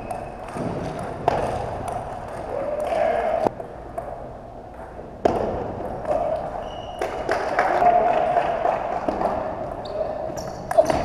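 Table tennis ball clicking off rackets and the table in rallies, the hits sharp and irregularly spaced, over background chatter from spectators.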